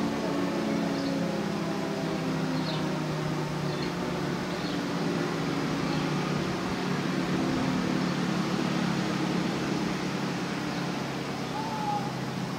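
Federal Signal Thunderbolt 1000AT warning siren with a 5/6 port ratio winding down at the end of its alert, its two-tone chord falling slowly and steadily in pitch as the rotor coasts. Birds chirp faintly now and then.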